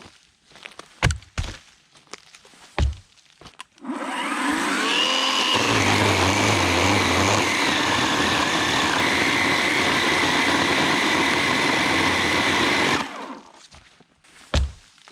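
Electric chainsaw starting about four seconds in with a rising whine, running for about nine seconds while its pitch dips and recovers, then stopping. A few short knocks come before it and one after.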